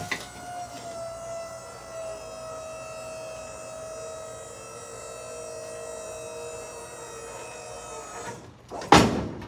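Truck lift gate's electric-hydraulic pump motor running with a steady whine, dipping slightly in pitch, as the gate raises a loaded drink vending machine; it cuts off about eight seconds in, and a loud clunk follows near the end.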